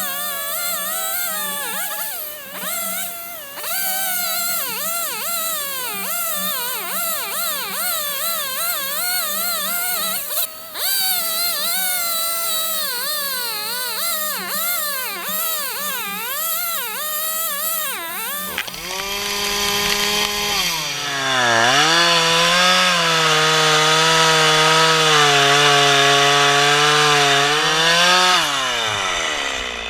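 Chainsaw cutting wood, its engine speed wavering up and down under load. About two-thirds of the way through a louder chainsaw comes in: its pitch drops as it bogs into the cut, holds steady, then rises and stops near the end.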